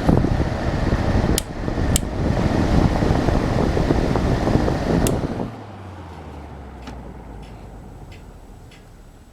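1988 Sears Kenmore 6000 BTU room air conditioner's fan running loud, with three sharp clicks. About five and a half seconds in the noise drops away and the fan motor hums lower and lower as it spins down, fading.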